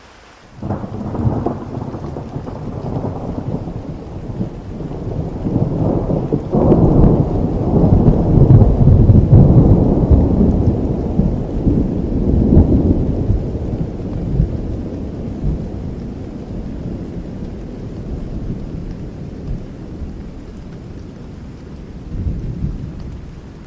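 A long roll of thunder that breaks suddenly about a second in, swells to its loudest around the middle and slowly rumbles away, with a smaller swell near the end. Steady rain falls underneath.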